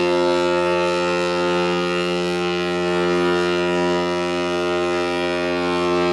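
Ship's horn sounding one long, steady blast.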